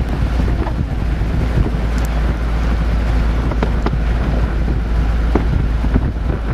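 Vehicle engine running with a steady low rumble, with wind buffeting the microphone.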